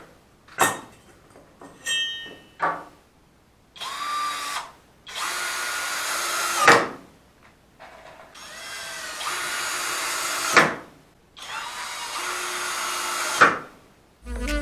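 Cordless drill-driver running in four runs of one to two seconds, its motor speed rising and falling, each run stopping abruptly, after a few short clicks; typical of driving screws into a wooden batten.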